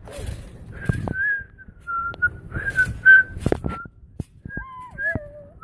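A person whistling a tune in short, high, wavering notes, with a lower falling note near the end. Scattered thumps and rustles from bouncing on a trampoline and handling the phone run under it.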